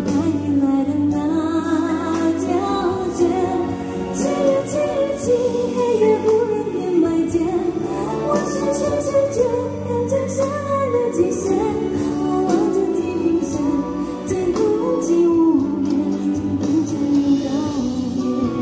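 Woman singing a Mandarin pop song live into a handheld microphone, over instrumental accompaniment with a steady bass line.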